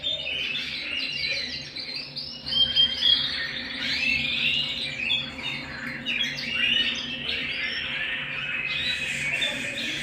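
Canary singing: a continuous run of quick chirps, trills and rising and falling whistled notes, loudest about three seconds in. A faint steady hum lies underneath.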